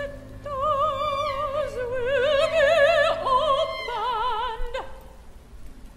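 A woman's operatic voice sings a slow line of long, high notes with wide vibrato over a low held note. The low note drops out about three and a half seconds in, and the voice stops near five seconds.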